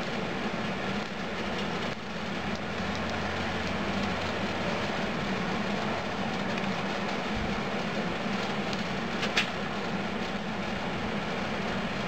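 Propane-fired furnace running with a steady roar while molten metal is poured. A single brief sharp click stands out about nine seconds in.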